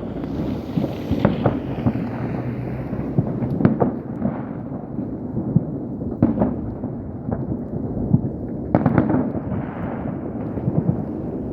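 Fireworks going off: a continuous rumble of overlapping distant bursts, with sharper, louder bangs every second or two and a cluster of them about nine seconds in.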